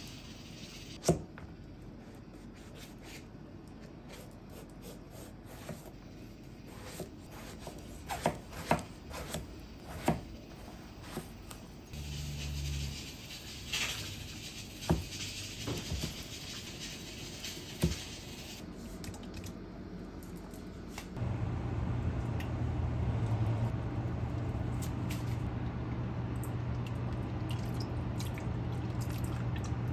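Knife work on a wooden cutting board: scattered sharp knocks and small snaps as green beans are trimmed and tilapia fillets are cut. About 21 seconds in, a steady low hum starts and continues.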